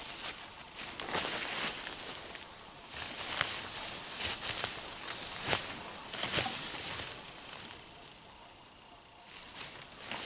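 Footsteps through dry brush and vegetation, a crunching rustle about once a second with small snapping clicks, pausing briefly near the end before starting again.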